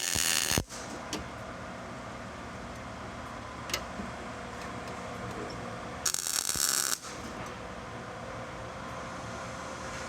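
Two short MIG welding arcs from a Miller Millermatic, crackling for about half a second at the start and for about a second some six seconds in: tack welds filling small holes in faulty welds. A single sharp click falls between them, over a steady background hum.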